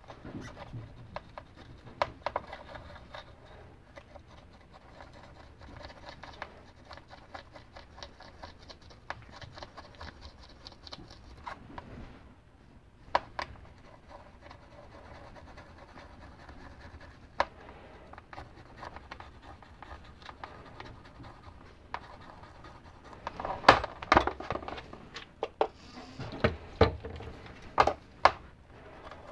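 Cut-down stiff-bristled acid brush scrubbing the engravings of a steel micrometer thimble, a quiet scratching. Sharp clicks and taps break in now and then, with a cluster of them near the end.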